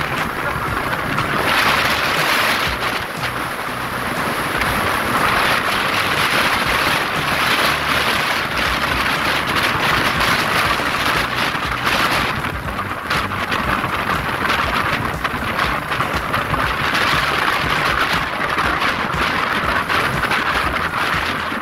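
Steady wind noise rushing over the microphone of a Yamaha Mio scooter riding at speed, with road noise beneath it, swelling and easing a few times.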